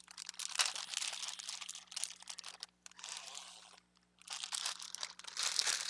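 A bag of craft gems crinkling and rustling as it is handled, with two short pauses near the middle.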